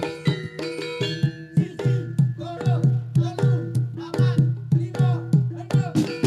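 Live East Javanese gamelan accompanying a barongan dance: drum strokes about twice a second, low and bending in pitch, over ringing gongs and metallophones.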